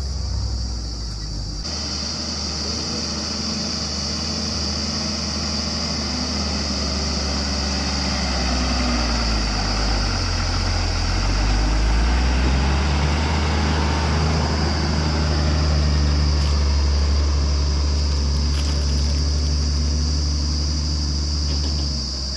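Heavy diesel engine of an earthmoving machine or tipper truck running steadily, its pitch rising and falling midway as it is revved and worked, then holding at a higher, louder pace. A steady high buzz runs alongside from about two seconds in.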